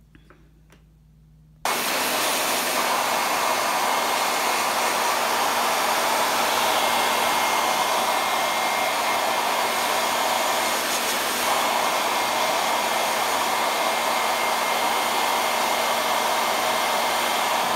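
Hair dryer switched on about two seconds in and running steadily, a loud rush of air with a faint high whine, blowing dust out of a laptop cooling fan held under its nozzle.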